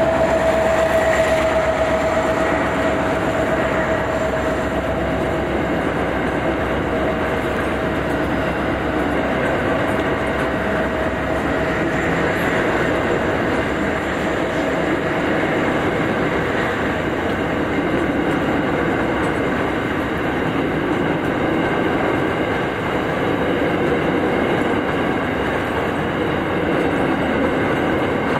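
Ballast train's wagons rolling past on the rails, a steady noise of wheels on track. In the first few seconds a held, fairly high tone fades away.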